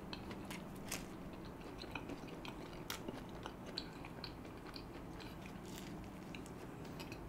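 Close-miked chewing of soft stuffed garlic bread with a cheesy filling: many small wet mouth clicks and smacks. A faint steady low hum lies underneath.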